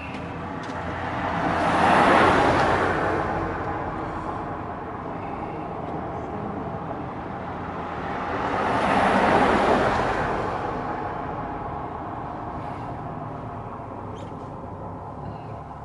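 Road traffic: two vehicles drive past, each rising and then fading over about three seconds, the first about two seconds in and the second about nine seconds in, over a steady low rumble.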